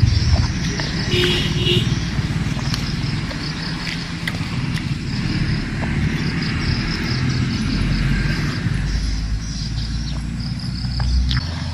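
Steady low rumble of a motor vehicle engine running nearby, with insects chirring in a high, even band and a few faint crunches of chewing crisp water apple.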